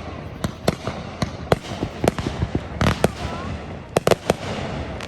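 Fireworks going off in an irregular string of sharp bangs and cracks, several a second. A heavier burst comes about three seconds in, and two loud bangs close together just after four seconds.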